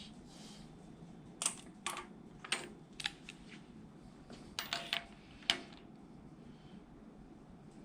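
A few sharp metal clicks and taps, irregularly spaced and some ringing briefly, from hand tools working on a small-block Chevy's rocker arm and guide plate hardware.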